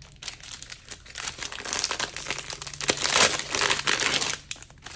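Clear plastic packaging sleeve crinkling and crackling as it is handled and pulled open around a set of cash envelopes, loudest about three to four seconds in.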